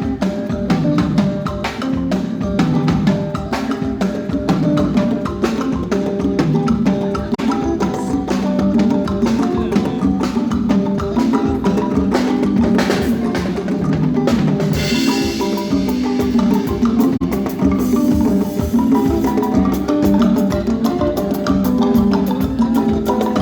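Live band playing Congolese rumba at a sound check: drum kit and percussion keep a dense beat under guitar and bass lines, with a cymbal wash about two-thirds of the way through.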